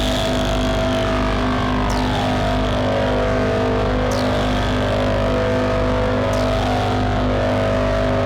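Elektron Digitone FM synthesizer droning: a steady held chord over a low hum, with a hissing noise sweep that falls from very high pitch about every two seconds, and a tone gliding slowly downward in the first few seconds.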